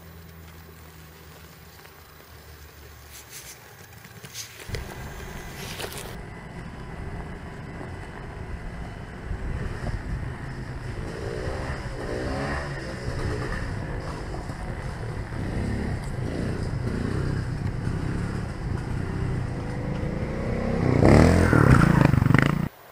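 Electric motor and belt drive of an MST CMX radio-controlled rock crawler, converted to a front-mounted motor, whining as it climbs over rock and dirt, its pitch rising and falling with the throttle, with tyres scraping on stones. It starts about five seconds in, grows louder, and cuts off suddenly near the end.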